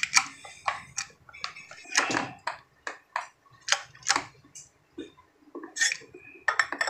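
Irregular metallic clinks and light knocks, about a dozen short strikes with a brief high ring, as the parts of a Kia Pregio ball joint are handled just after its new liner has been pressed in.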